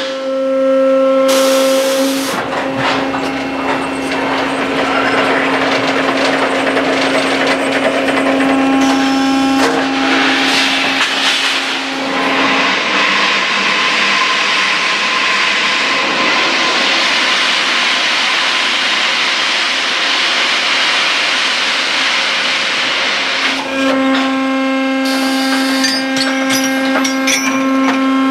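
RMS rebar shearline with a 611 hydraulic shear running: a steady motor whine with several overtones, which drops away for about ten seconds in the middle, over constant mechanical noise. Several short bursts of hiss break in, about a second in, around nine seconds, and twice near the end.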